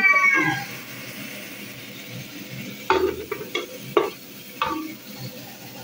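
Grated onions sizzling in oil in a large aluminium pot, stirred with a wooden spoon that scrapes and knocks against the pot four or five times from about three seconds in. At the very start a rooster's crow trails off.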